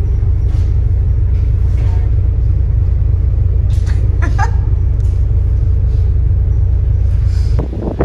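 Loud, steady low rumble of a ferry under way, heard on its open outer deck. It cuts off suddenly just before the end.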